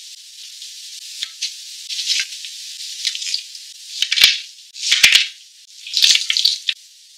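Food being set down on a baking tray by a gloved hand: a light hiss with several short rustling swishes and small taps, the strongest about four, five and six seconds in.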